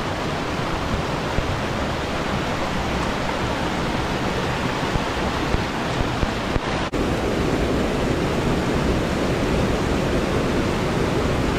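Steady rush of whitewater tumbling over boulders in a mountain stream, with a brief dropout about seven seconds in.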